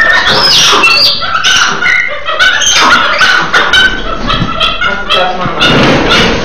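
Monkeys calling: a rapid string of short, high-pitched yelping cries, several at different pitches overlapping.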